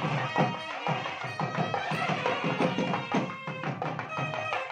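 A nadaswaram plays a reedy, nasal melody over quick thavil drum strokes: South Indian temple-and-wedding music played live.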